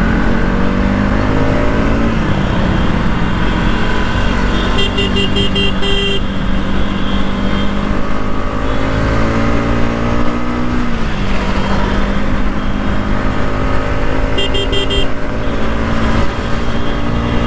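Bajaj Pulsar NS200's single-cylinder engine accelerating hard, its pitch climbing and dropping back at upshifts about two and eleven seconds in. A horn beeps in quick pulses twice, about five and fifteen seconds in.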